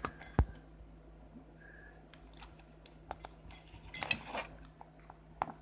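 Small clicks and clinks of plastic and metal camcorder parts and a tool being handled during disassembly: a sharp click just under half a second in, a rattling cluster of clicks about four seconds in, and one more click near the end, over a low steady hum.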